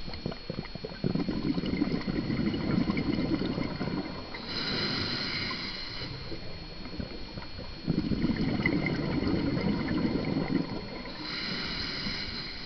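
Scuba diver breathing through a regulator underwater: two long bubbly exhalations, each followed by a shorter hissing inhale.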